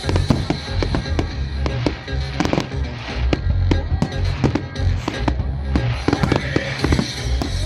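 Fireworks bursting in quick succession, with many sharp bangs and crackles, over loud music with a heavy bass.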